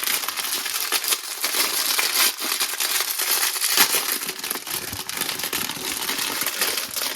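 Wrapping crinkling and crackling continuously as a ball of brass wire for cleaning a soldering-iron tip is unwrapped by hand.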